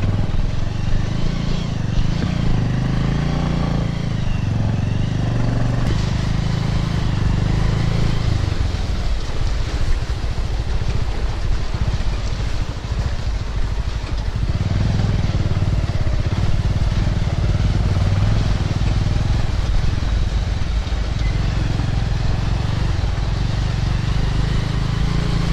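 Motorcycle engine running at low speed, its note easing off for several seconds around a third of the way in and then picking up again.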